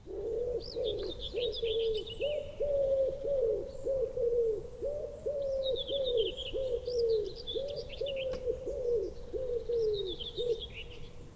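A bird cooing in a steady run of low, falling notes, about two a second, while a songbird sings three short twittering phrases over it.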